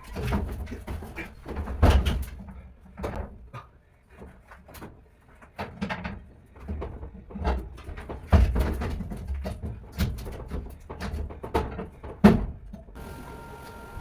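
Irregular knocks, thumps and clatter, like heavy objects being handled and struck, with one sharp loud knock near the end.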